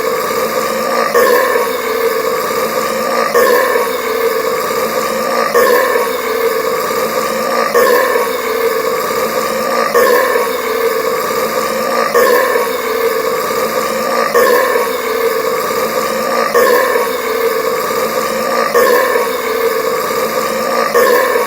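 A loud, drawn-out belch played as a seamless loop, the same burp starting over about every two seconds without a break.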